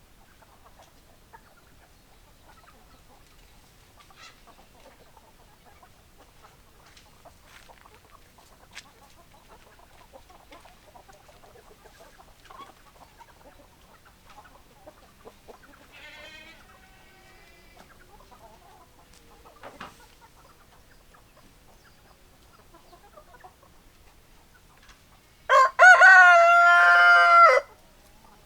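A rooster crows once, loudly, for about two seconds near the end. Before it there are only faint scattered clicks and a short, soft chicken call about halfway through.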